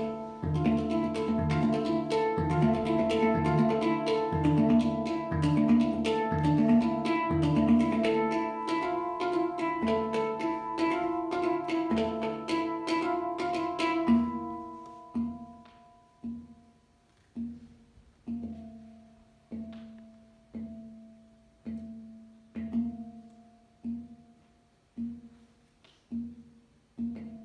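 A hang (steel handpan) played with the hands: a fast, dense flurry of ringing notes, which thins about halfway through to single notes struck about once a second, each ringing out and fading.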